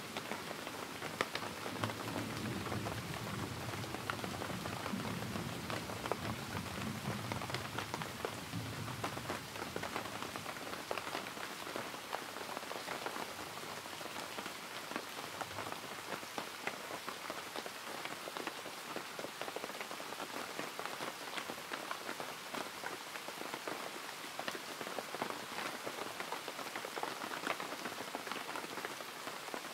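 Steady rain falling, a dense patter of drops. A low rumble of distant thunder fades out over the first nine seconds or so.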